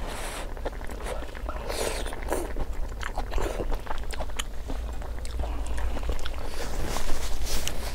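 Close-miked chewing of a mouthful of hot-pot vegetables and noodles: wet mouth noises with many small irregular crunches and clicks.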